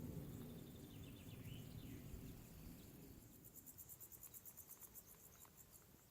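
Faint outdoor ambience: a bird calls briefly about a second in, then an insect chirps in a high, rapid pulsed buzz of about eight pulses a second from about halfway, while a low rumble fades away.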